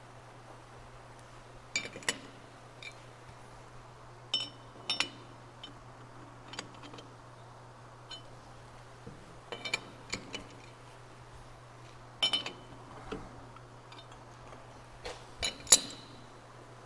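Sharp metal clinks of a T-handle chuck key against the jaw screws of a large four-jaw lathe chuck, in about five short clusters, as the jaws are adjusted to centre the part. A steady low hum lies under them.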